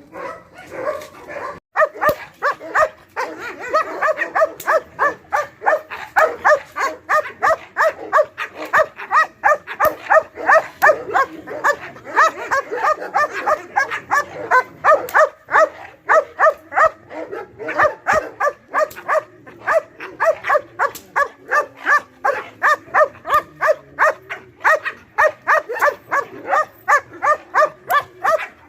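Guard dog barking over and over at a steady pace of about two barks a second, without letting up.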